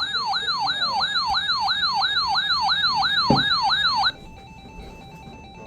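Electronic siren-like alert tone on a tornado-warning weather alert: rapid falling pitch sweeps, about four a second, that cut off abruptly about four seconds in, leaving only faint steady tones.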